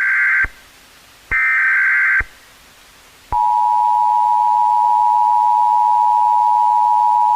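Emergency Alert System tones: two short bursts of SAME header data, each a harsh digital warble lasting about a second, then the steady two-tone attention signal, which starts about three seconds in and holds.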